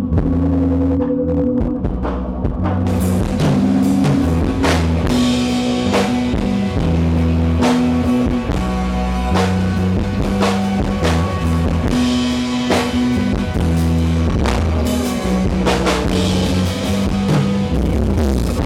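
A rock band playing live: bass and guitar notes held steady, with a drum kit's hits and cymbal crashes coming in about three seconds in and keeping time to the end.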